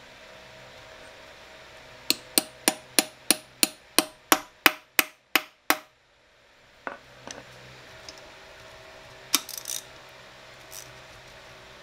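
Hand tools working on the metal case of a Toyota E153 transaxle: a run of about a dozen sharp metallic clicks, about three a second, then a few scattered clicks and knocks.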